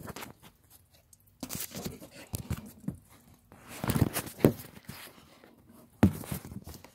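Handling noise from work at a diesel fuel filter housing: irregular knocks, clicks and scrapes as the camera is moved into place and the top fuel pipe's plastic connector is worked. The loudest knocks come about four seconds in and again at six seconds.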